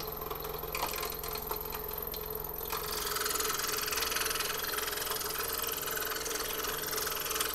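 Scroll saw motor running steadily with its blade cutting through the wooden puzzle board, an even mechanical hum with a bit more hiss from about three seconds in.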